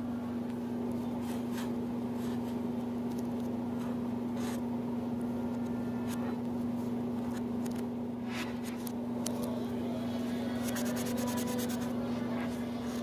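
Felt-tip marker scratching and squeaking on paper in short strokes, over a steady low hum that is louder than the writing.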